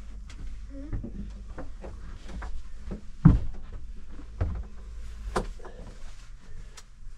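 Scattered knocks and clunks in a small boat cabin, the loudest about three seconds in, over a steady low hum.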